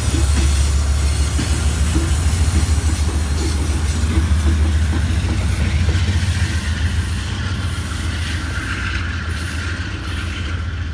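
VIA Rail passenger train passing close by, its trailing GE P42DC diesel locomotive's engine running with a steady low sound over wheel noise on the rails, easing slightly toward the end.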